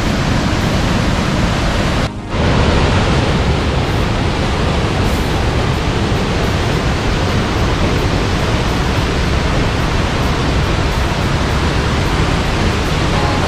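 Salto del Laja waterfall rushing: a loud, steady roar of falling water that dips briefly about two seconds in.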